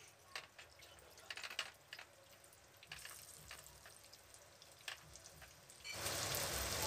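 Rawa-and-cornflour-coated bombil fish shallow-frying in hot oil in a pan: scattered faint pops and crackles, then about six seconds in a sudden change to a dense, steady, louder sizzle.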